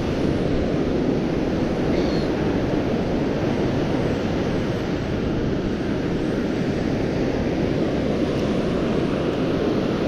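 Strong wind buffeting the microphone: a steady low rumbling rush with no let-up.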